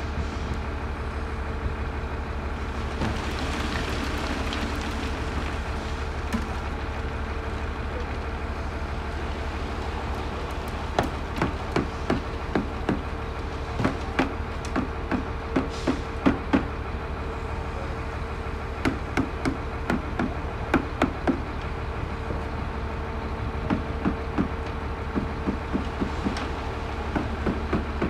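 Hammer blows knocking on steel column formwork, in irregular runs of a few sharp knocks from about ten seconds in. Under them a machine hums steadily throughout.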